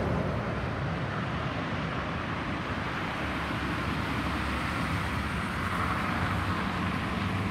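Steady distant roar of a Boeing 737-800's CFM56 jet engines as the airliner draws away on final approach, blended with road traffic noise.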